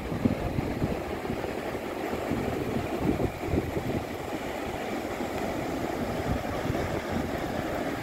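Wind buffeting the microphone in an uneven low rumble, over the steady wash of breaking surf.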